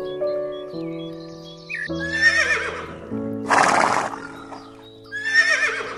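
Horse whinnying twice, each a wavering call that slides down in pitch and is followed about a second later by a short harsh noisy burst, over background music with sustained notes.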